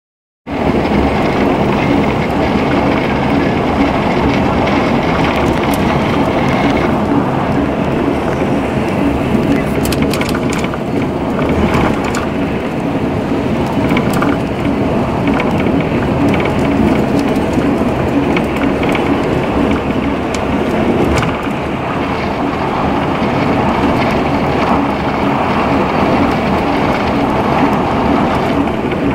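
Steady road and wind noise of a car driving at highway speed, heard from inside the car.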